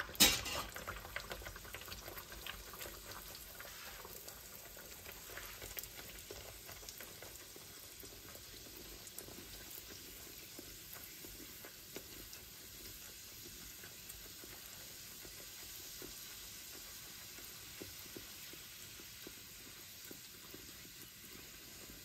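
A bhatura, a disc of maida dough, deep-frying in hot oil in a stainless steel pan, with a steady sizzle full of fine crackles that slowly fades. A brief loud burst comes right at the start.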